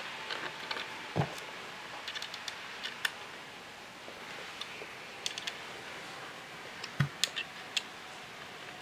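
Light clicks and taps of metal parts being handled as the clamp rings and rods of a router lift are fitted onto a trimmer router, with two duller knocks, one about a second in and one later on.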